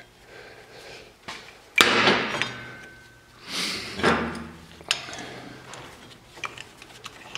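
Metal knocks and clatter of a steel ATV brake caliper and hand tools being handled, with a sharp knock about two seconds in and a few lighter clicks after.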